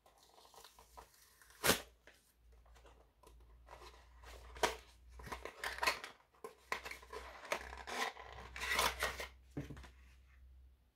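Cardboard toy box and paper packaging being handled and pulled open: irregular rustling, scraping and sharp snaps of card. The sharpest snaps come about two seconds in and again near the end as the inner tray is slid out.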